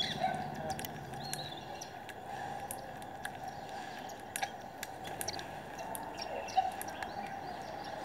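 Birds chirping in short, scattered calls, with many sharp ticks, over a steady low background hum.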